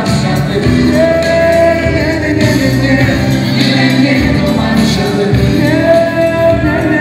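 Loud dance music with singing playing over a PA system, with long held sung notes.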